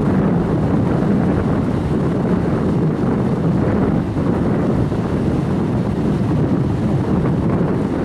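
Steady rush of fast-flowing river water, with wind buffeting the microphone.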